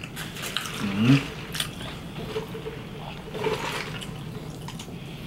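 Close-miked eating sounds: wet chewing, lip smacks and mouth clicks, with a short rising hummed "mm" about a second in.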